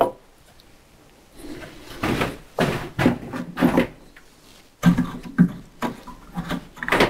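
Irregular wooden knocks and clunks as bar clamps and a board are handled and set in place on a solid walnut sideboard carcass. The knocks come in clusters after a quiet first second and a half.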